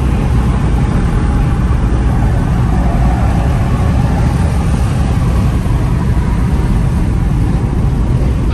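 A car on the move, its steady road and engine noise a dense rumble strongest in the low end.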